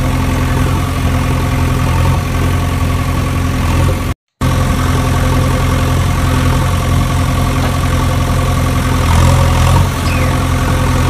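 Steady engine idling sound, a constant low hum that cuts out completely for a moment about four seconds in.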